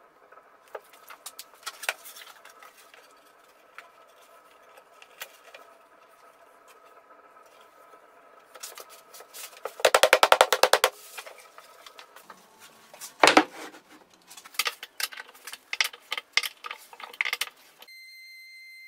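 Handling sounds of plywood pieces being marked, shifted and set against each other on a workbench: scattered clicks and knocks over a faint steady hum, a burst of rapid rattling clicks about halfway through and one sharp knock a few seconds later. Music with whistle-like tones starts near the end.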